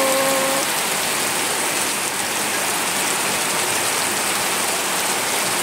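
Heavy rain falling steadily onto a wet road awash with muddy runoff, an even, dense hiss.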